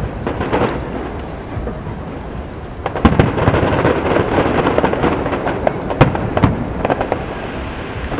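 Aerial fireworks shells bursting in quick succession, single bangs over a continuous crackle and rumble. The sharpest bangs come about three seconds in and twice around six seconds in.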